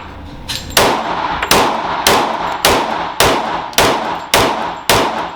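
Glock 23 .40 S&W pistol fired about eight times in a steady string, roughly two shots a second, each shot ringing and echoing in an indoor range.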